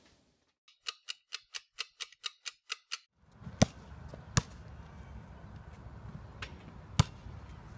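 A quick run of about ten even clock-like ticks, roughly four a second, used as a time-passing effect. They give way to a steady low rumble, with a basketball bouncing sharply on a concrete court three or four times; the loudest bounce comes near the end.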